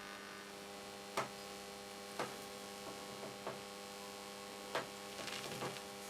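Steady electrical hum from a vacuum-tube RF torch discharge burning on the tip of a melting copper wire electrode. A few faint crackles and pops are scattered through the hum, most of them near the end.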